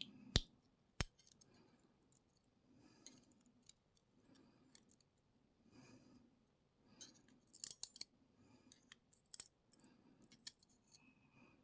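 Light metallic clicks and taps as the small pin-in-pin drivers and springs of a lock core are picked out and handled. There are two sharp clicks about half a second and a second in, then clusters of faint clicking later on.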